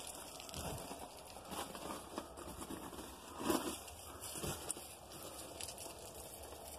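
Footsteps crunching on gravel track ballast at an uneven walking pace, with one louder crunch about halfway through.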